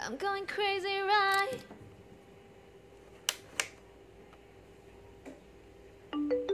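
Background pop song ending on a sung note held with vibrato. After that it is quiet except for two sharp clicks about a third of a second apart, from hands working a small plastic CD player. A short new burst of music starts right at the end.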